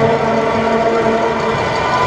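Sustained horn-like tones held over a constant din in an ice rink, the pitch stepping higher near the end.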